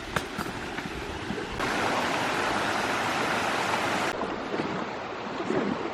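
Rushing water from the waterfall-fed creek, a steady rush that jumps louder about a second and a half in and drops back abruptly about four seconds in.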